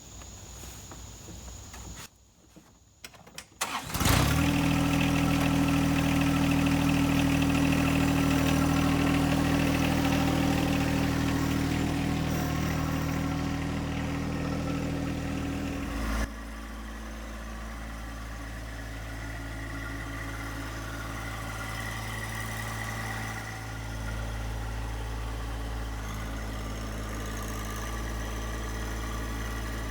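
John Deere 1025R sub-compact tractor's three-cylinder diesel engine running steadily, starting abruptly about four seconds in. It drops to a lower, quieter note about sixteen seconds in.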